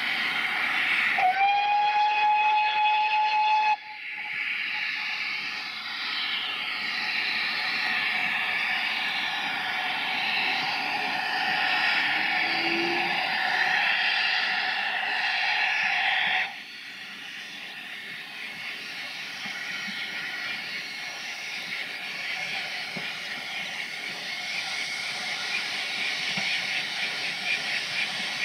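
Steam locomotive whistle sounding one long, steady blast of about two and a half seconds, then a loud steam hiss that drops off suddenly about two-thirds of the way through, leaving a quieter hiss that slowly grows again.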